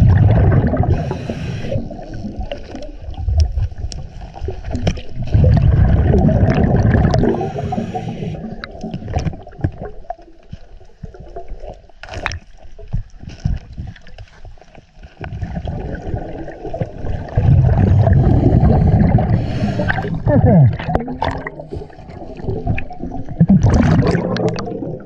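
Underwater recording of a scuba diver's exhaled bubbles gurgling and rumbling from the regulator in long spells a few seconds apart, with quieter stretches and a few sharp clicks between them.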